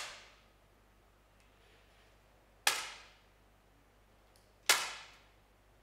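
Two 10-metre air pistol shots, each a sharp pop with a short echoing decay, about two seconds apart, the second near the end; the echo of an earlier shot fades out at the very start.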